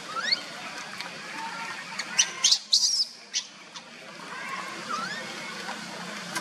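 Birds chirping: a quick rising call at the start, a cluster of sharp high chirps around two to three seconds in, and a falling call near five seconds, over a steady low hum.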